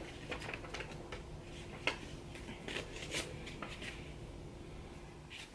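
Faint handling noises: light rustles and small clicks as paper perfume test cards and bottles are picked up and held, with a sharper click about two seconds in.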